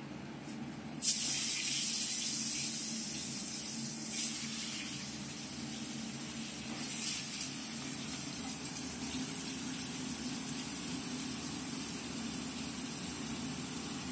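Diced potatoes dropped into hot oil, setting off a loud sizzle about a second in. It flares again as more pieces go in, around four and seven seconds, then settles into a steady frying hiss.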